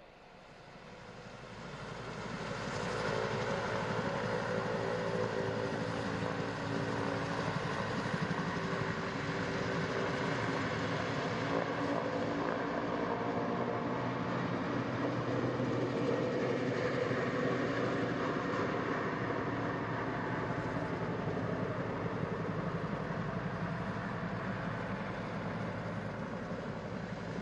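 A steady rushing rumble, like a passing train or running engine, with low humming tones through it. It fades in from near silence over about the first three seconds, then holds.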